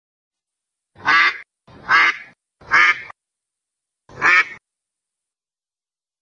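A duck quacking four times: three quacks about a second apart, then a fourth after a short pause.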